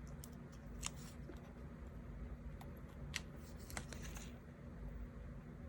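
Kiss-cut paper stickers being peeled and pressed onto a diary page: a few faint sharp ticks spaced out, with a short paper rustle about four seconds in.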